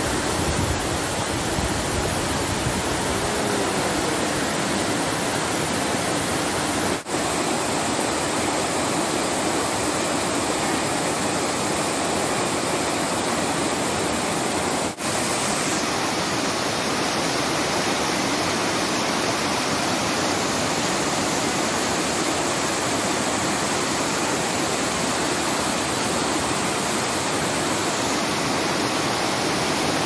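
Cascading waterfall pouring over rocks close by: a steady, even noise of falling water. It cuts out for an instant twice, about 7 and 15 seconds in.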